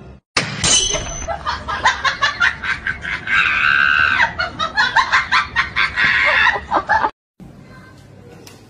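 Music with raised voices over it, cutting off abruptly about seven seconds in; only faint background sound follows.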